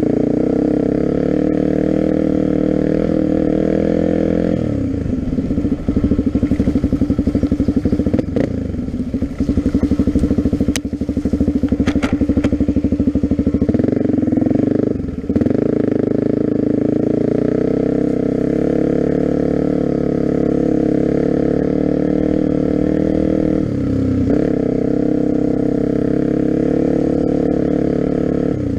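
Suzuki dual-sport motorcycle engine running at low, steady revs while riding slowly over a grassy trail. The note changes briefly about five, fifteen and twenty-four seconds in as the throttle is eased and reopened. A couple of sharp clicks come near the middle.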